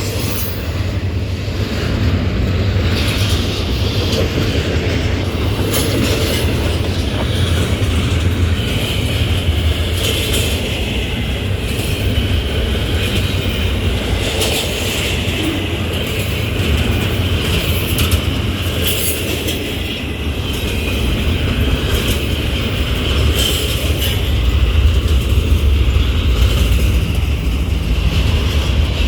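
Freight train's cars rolling past at speed: a steady loud rumble with repeated clicks of wheels over the rail joints.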